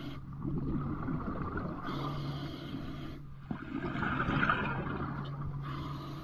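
A diver breathing underwater through a regulator fed by a surface air compressor hose: bubbling exhalations alternate with two hissing inhalations.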